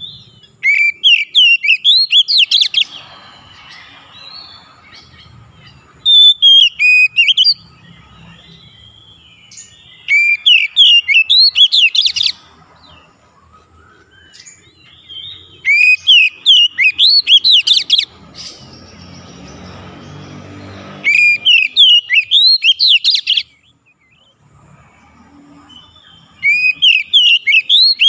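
Oriental magpie-robin (kacer) singing: six loud bursts of rapid, high, sweeping whistled notes, each about two seconds long, a few seconds apart.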